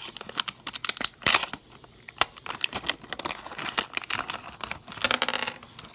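Crinkling and crackling of a foil booster-pack wrapper being handled, in quick irregular bursts, louder about a second in and again near the end.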